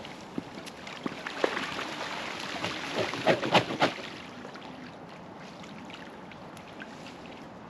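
Mute swans bathing, splashing in the water, with a quick run of loud splashes and wing-beats about three seconds in as one rears up and flaps its wings.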